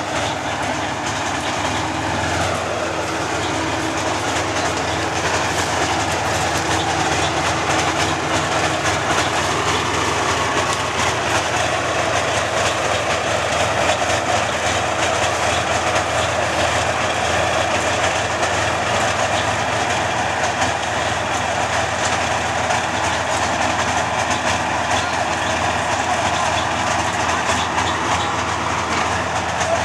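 Tracked fire-brigade recovery vehicle running steadily and loudly, its engine and clattering tracks heard as it crawls slowly across the mud.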